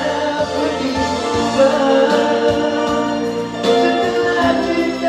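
Live busking music: an electric guitar played through a portable PA speaker, with long held melody notes.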